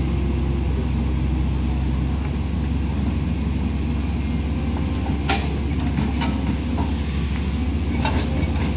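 Hydraulic excavator diesel engines running steadily under load while the boom and bucket work, with a few sharp metal clanks in the second half.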